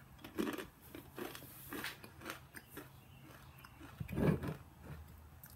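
A person biting and chewing a cluster of crunchy homemade baked oat granola: a series of irregular crisp crunches, with a louder one about four seconds in.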